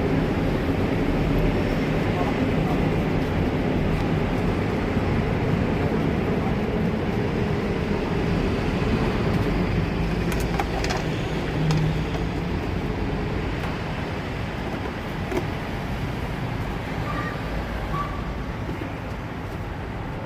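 Busy street ambience: a steady rumble of traffic with people talking, and a few sharp clicks around the middle.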